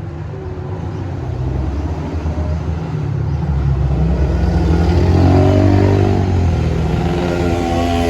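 Bus engine revving as the bus passes, rising in pitch and growing louder to a peak about five seconds in, then easing off.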